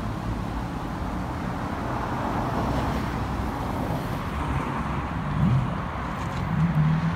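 Steady outdoor road-traffic noise, a continuous rumble and hiss of passing vehicles. Near the end one engine rises in pitch as a vehicle speeds up.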